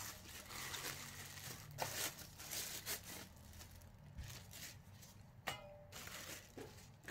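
Thin plastic bag crinkling and rustling as it is handled and pulled off a handheld inkjet printer, with light handling knocks and one sharper clack about five and a half seconds in.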